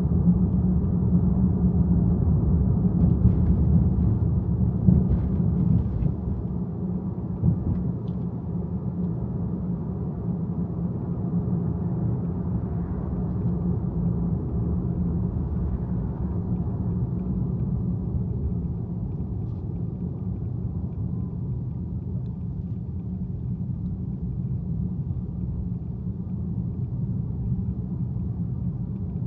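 Steady low rumble of a car driving: road and engine noise with a few faint clicks in the first several seconds. The rumble eases slightly about six seconds in.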